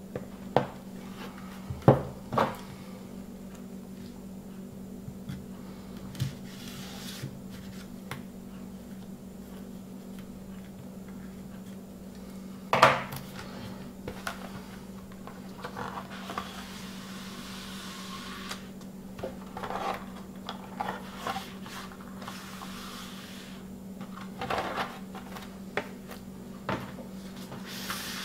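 A shrink-wrapped vinyl LP jacket being handled on a table: sharp knocks and taps as it is set down and turned over, the loudest about halfway through, and stretches of plastic rustling and sliding. A steady low hum runs underneath.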